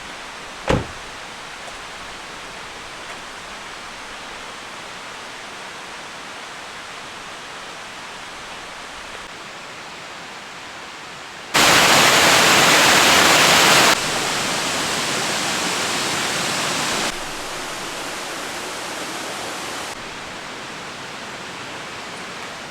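Steady rushing of flowing water, with one sharp click near the start. About halfway through it jumps abruptly much louder, then drops back in three sudden steps.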